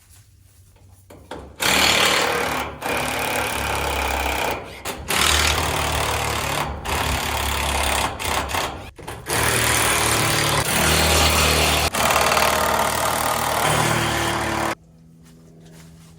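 A battery-powered power tool run in long trigger pulls, starting and stopping abruptly with several short breaks, loud and mechanical with a low hum under it.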